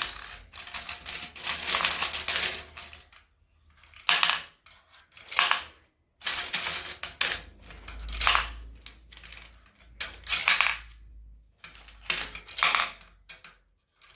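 Small hard game pieces clattering and rattling in repeated short spells, about every second or two, as a toy game is played.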